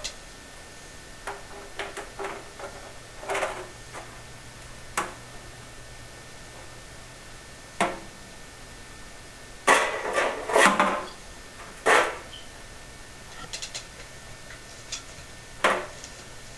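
Scattered knocks and light metallic clanks of thin sheet-metal flue pipe being handled and fitted, with a quick cluster of several knocks about ten seconds in, over a faint steady hum.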